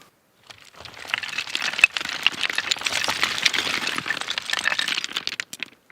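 Loose rocks clattering and rattling against one another as they are picked up and shift underfoot, a dense run of small clicks and knocks lasting about five seconds, with one sharper knock about two seconds in.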